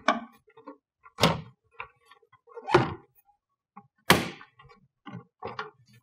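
Plastic clips of a Tesla Model S frunk side trim panel snapping loose as the panel is pulled up: three sharp snaps about a second and a half apart, then a few lighter clicks near the end.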